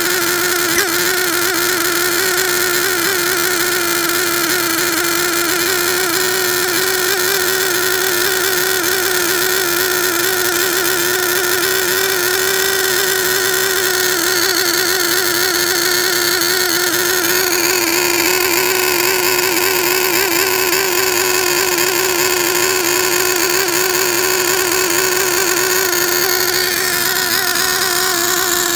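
OS Max R21 3.5 cc nitro engine in an RC car running steadily and loudly during break-in on its very rich factory carburettor setting. Its tone shifts a little about two-thirds of the way in.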